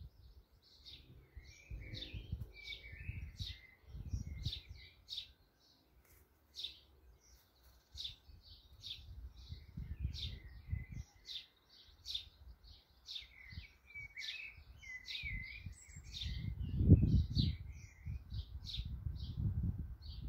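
Sparrows chirping over and over in short, high notes, with stretches of a blackbird's warbling song twice. Low rumbles come and go underneath, loudest about three-quarters of the way through.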